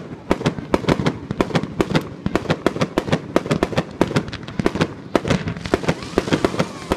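Fireworks and firecrackers going off in rapid, irregular succession, several sharp bangs a second.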